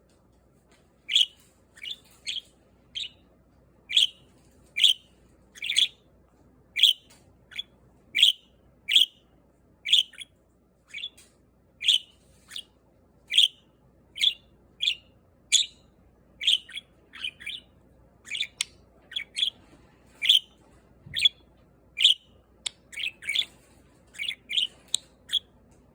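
Budgerigar giving short, sharp chirps one after another, about one or two a second, with a few brief pauses.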